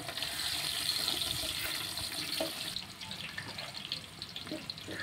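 Sliced onions tipped into hot oil in an aluminium pot, setting off a loud sizzle that starts suddenly and eases a little after about three seconds.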